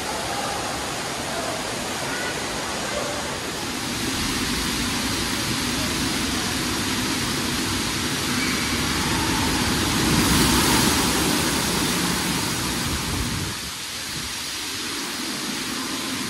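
Indoor water park ambience: a steady rush of running and splashing water from the slides and play structure. It swells about ten seconds in and drops a little near the end.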